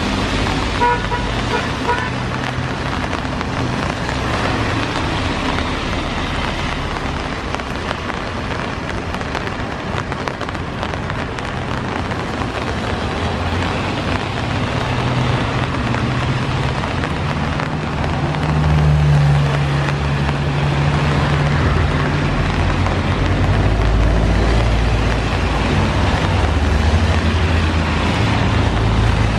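Steady rain hiss with the low rumble of a Boeing 787-9's jet engines as it taxis, the rumble swelling past the middle and a deeper rumble building near the end.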